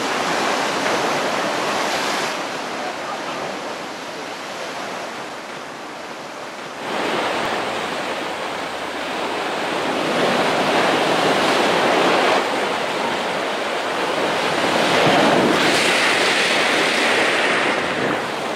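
Mediterranean surf breaking and washing over rocks and a beach, a steady rush that swells and eases every few seconds as waves come in.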